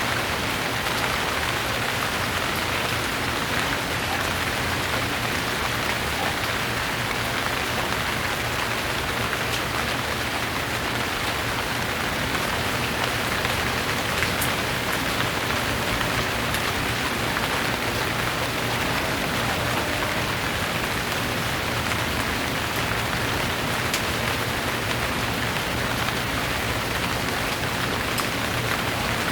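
Steady rain falling, an even hiss with scattered individual drops ticking now and then.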